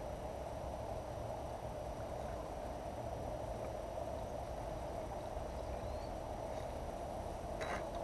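Steady, even outdoor background noise with a low rumble, and one short sharp click near the end.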